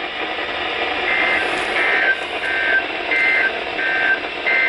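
Electronic alert tone: a string of six short, high two-note beeps, evenly spaced about two thirds of a second apart, starting about a second in, over a steady hiss. It signals an incoming emergency weather warning.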